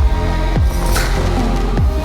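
Electronic background music with a steady beat, deep bass notes sliding downward on each beat, and sustained synth tones.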